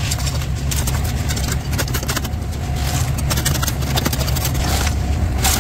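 Cement mixer's engine running steadily with a low drone, with scattered short knocks and scrapes over it as wet concrete is tipped and worked into the formwork.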